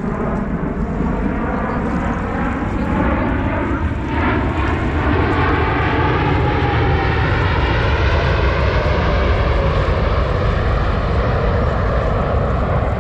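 Blue Angels F/A-18 Super Hornet jet noise on a flyover: a loud, continuous roar that grows over the first few seconds and stays loud, its pitch bands bending downward as the aircraft passes.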